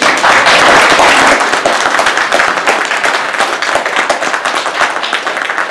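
Audience applauding: dense clapping that starts abruptly, is loudest for the first second and a half, then carries on a little softer.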